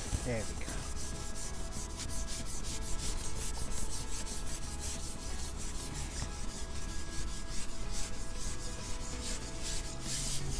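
Carbon fishing pole being shipped back, its sections rubbing and scraping in a quick, even run of scratchy strokes, several a second. Faint background music underneath.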